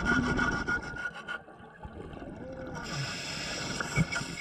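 Underwater sound of a scuba diver breathing through a regulator, in two noisy spells, the first stopping abruptly about a second and a half in. A single sharp knock near the end as a metal pole strikes the anchor.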